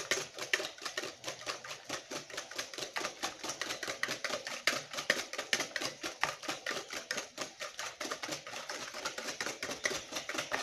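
Chocolate cake batter with eggs being beaten by hand in a bowl, a metal utensil clicking against the bowl in rapid strokes, about five a second. The beating stops abruptly at the end.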